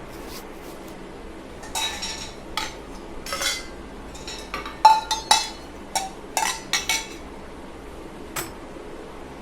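Dishes and metal utensils clinking and clattering: a run of sharp clinks and knocks, some ringing briefly, starting about two seconds in, with the loudest around the middle and a last single clink near the end.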